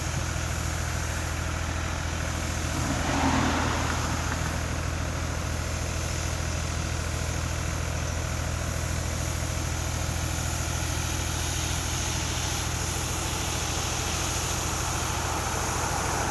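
An engine idling steadily, with one brief louder swell about three seconds in.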